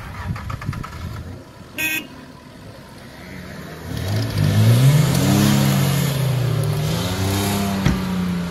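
An off-road 4x4's engine revving hard under load: the revs climb about four seconds in and stay high, wavering. A short sharp blip about two seconds in and a single knock near the end.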